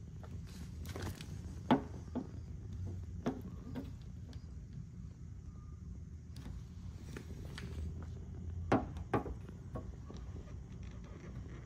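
Handheld paint thickness gauge being set against and lifted off a car's painted body panel, giving a few short clicks, mostly in pairs about half a second apart, the loudest about two seconds in. A steady low hum lies underneath.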